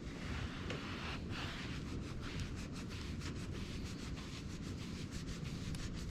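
Cloth wiping down an epoxy-and-wood tabletop that has been sanded to 600 grit, a hissy rub in quick repeated strokes.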